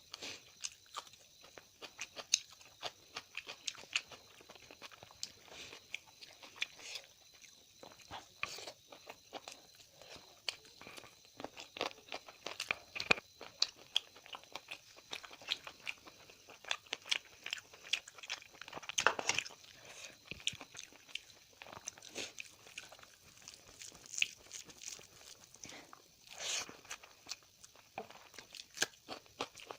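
A person eating close to the microphone: chewing, biting and crunching, with many irregular mouth clicks and smacks, from a meal of chicken curry, eggs, rice and raw onion.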